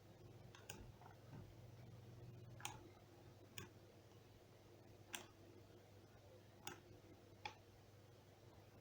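Near silence with a faint low hum and about six faint, irregularly spaced clicks: a stylus tapping on a pen screen while writing.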